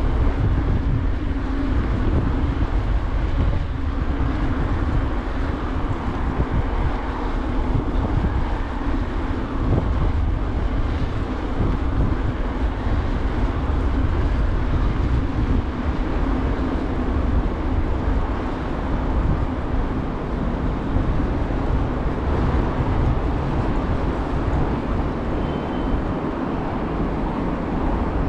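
Steady rumbling noise of a bicycle being ridden along a city street: wind on the microphone and tyres rolling on the road, with traffic around.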